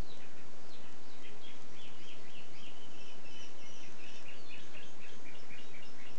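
Mockingbird (cenzontle) singing a fast, continuous string of varied short chirps and warbled notes, over a steady hiss.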